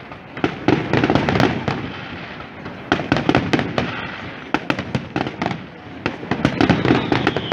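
Aerial fireworks bursting overhead: clusters of sharp bangs and crackling reports every second or two, over a low continuous rumble.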